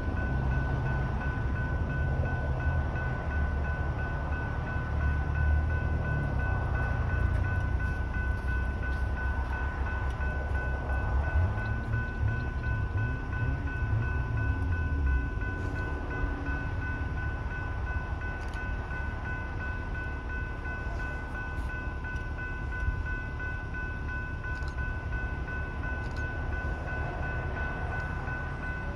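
Railroad crossing's General Signals type 3 electronic bells ringing steadily, with a low rumble from a passing commuter train that fades about halfway through.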